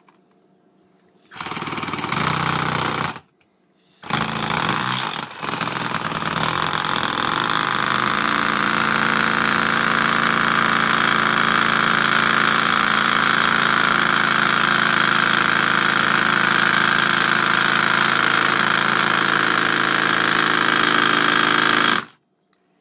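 Hammerhead HCID120 12-volt cordless impact driver / auto-hammer in auto-hammer mode, hammering a nail down into a pine block: a short burst, a pause of about a second, then a long continuous run of about eighteen seconds that cuts off abruptly just before the end.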